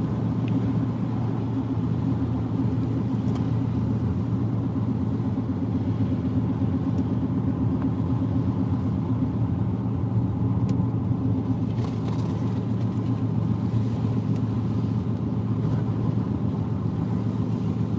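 Steady low drone of a car's engine and tyres on a wet road, heard from inside the moving car's cabin.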